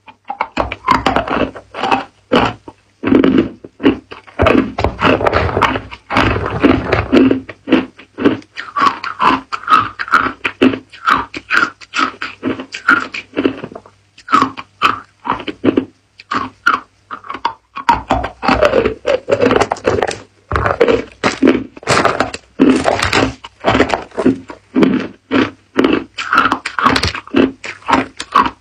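Hard ice cubes being bitten and chewed close to the microphone: a dense run of sharp cracks and crunches, with two short pauses, one about halfway through and another about two-thirds through.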